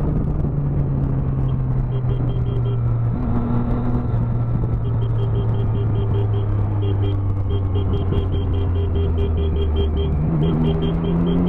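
Sport motorcycle engine running in a road tunnel, its note easing down slowly, then rising again about ten seconds in as the bike accelerates. A rapid electronic beeping, about six beeps a second, comes and goes in several runs over the engine.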